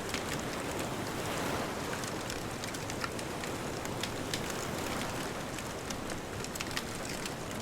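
Wood fire crackling with frequent sharp pops and snaps over a steady wash of distant ocean surf.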